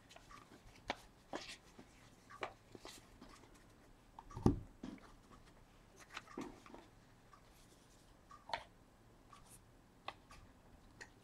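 Scattered small clicks and rustles of trading cards and card holders being handled on a desk, with one louder thump about four and a half seconds in.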